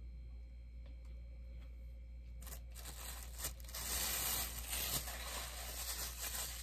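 Thin plastic bag rustling and crinkling as a bobblehead is pulled out of it, starting about two and a half seconds in and getting louder about a second later.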